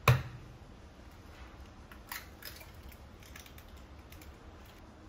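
An egg being cracked: one sharp knock of the shell against a hard edge right at the start, then small clicks and faint crackling ticks as the shell is pulled apart over a glass measuring jug.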